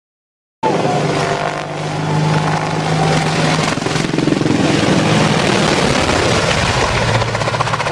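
Helicopter rotor and engine running loudly, cutting in abruptly about half a second in after silence.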